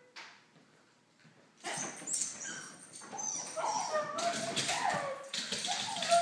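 Dog whining and yipping excitedly at the leash coming out for a walk, starting suddenly about two seconds in, with some clattering.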